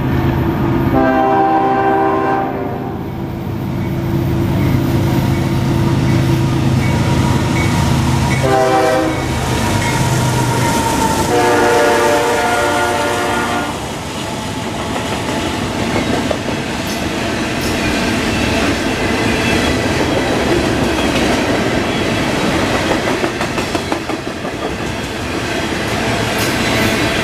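Freight diesel locomotive sounding its horn for a road crossing: a long blast, a short one, then another long one. The train then rolls steadily past, with the clickety-clack of its freight cars on the rails.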